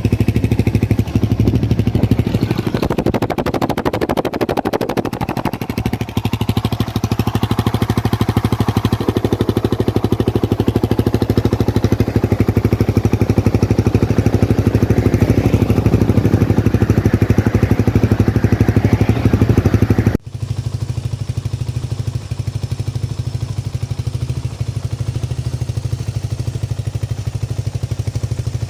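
Motorcycle engine running through a replica Akrapovic exhaust, a fairly quiet exhaust note. About twenty seconds in the sound cuts off abruptly to a steadier, slightly quieter running of the engine.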